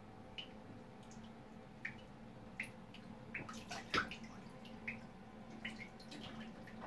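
Single drops of water dripping into a full bathtub, spaced out and irregular, with a short flurry of splashing about four seconds in as a Java macaque wades through the water. A faint steady hum runs underneath.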